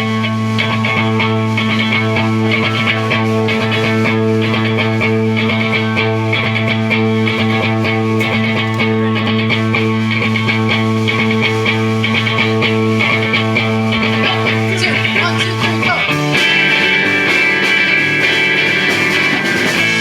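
Live rock music: an electric guitar holds one steady droning chord, then moves to new notes about sixteen seconds in.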